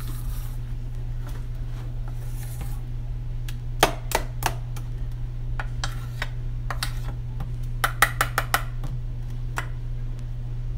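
Metal spoon stirring thick batter in a stainless steel bowl, clinking sharply against the bowl's side now and then, with a quick run of clinks about eight seconds in. A steady low hum sits underneath.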